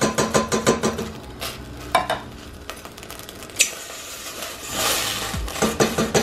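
Canned red kidney beans and their liquid being shaken out of a tin can into a stainless steel saucepan. The metal can knocks and taps against the pot in quick runs at the start and near the end, with a few single sharper knocks and a brief wet pour about five seconds in.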